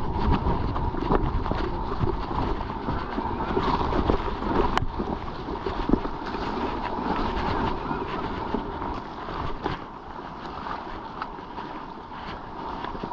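Wind buffeting the microphone over the rattle and knocking of a mountain bike riding rough trail, easing off after about ten seconds.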